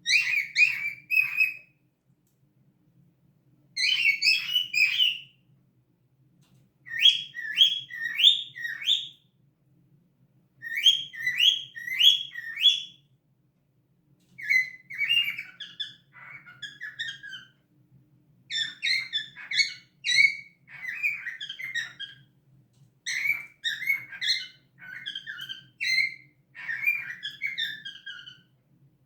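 Cockatiel chirping and whistling in short phrases of quick repeated notes. The phrases come every few seconds at first, then turn into steadier chatter about halfway through.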